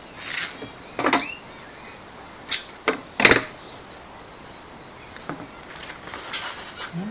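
A few short, sharp rips and rustles of self-adhesive mesh joint tape and paper being handled, the loudest about three seconds in, followed by softer rustling as the tape is pressed on.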